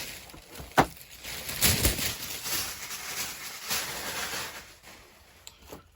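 Packing paper rustling and crinkling as toy pieces are unwrapped, with a sharp click about a second in; it dies down near the end.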